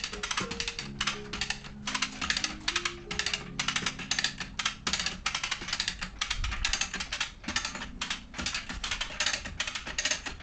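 Background music: a fast, steady clicking beat over low synth notes that step up and down in pitch.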